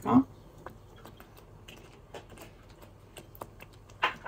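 A spoon stirring food as it browns in a pan, making light, irregular clicks and taps against the pan.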